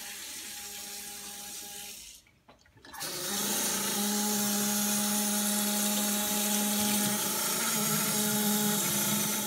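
Water running from a kitchen tap into a steel pot. It is a steady rush with a low, even hum in it, starting loudly about three seconds in after a short quiet gap, with a fainter steady hum before that.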